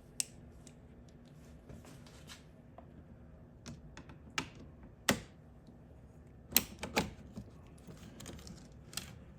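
Irregular sharp metallic clicks and clinks of long-reach hose clamp pliers being worked onto a spring hose clamp, their locking ratchet catching. The loudest clicks come about five seconds in and in a quick cluster near seven seconds.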